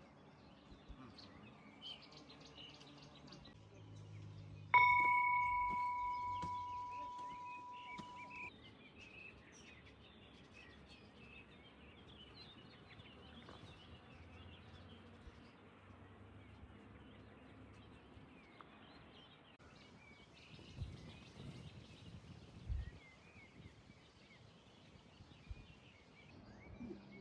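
Birds chirping, with a single bright bell-like strike about five seconds in that rings on and fades away over about three seconds. Two soft low thumps come later.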